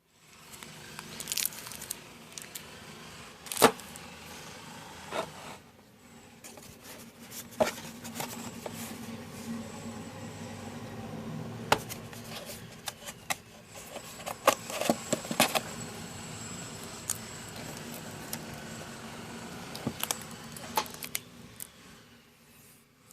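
Packaging being handled and unwrapped: plastic crinkling and tearing, with scattered sharp clicks and taps throughout.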